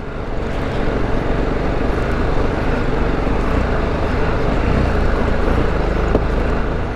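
BMW G310GS motorcycle's single-cylinder engine running under load as the bike climbs over a rocky, stony track, mixed with a steady rushing noise; the sound grows slightly louder over the first couple of seconds.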